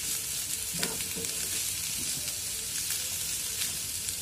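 Chopped vegetables sizzling steadily in oil in a frying pan, stirred with a wooden spatula, with a few light scrapes.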